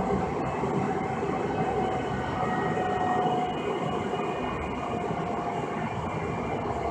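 Cabin noise inside a Siemens S200 light rail car running on the line: a steady rumble with faint, thin whining tones over it.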